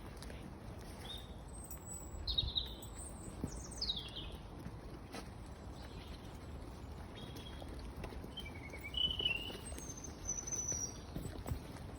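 Songbirds giving short, curving chirps, several in small clusters around two to four seconds in and again around seven to eleven seconds in, over a steady low rumble of outdoor noise.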